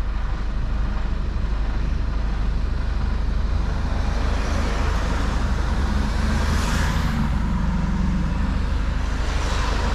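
Mercedes-Benz Actros L truck's diesel engine running steadily under way, with a constant rushing of tyre and road noise that swells briefly about seven seconds in.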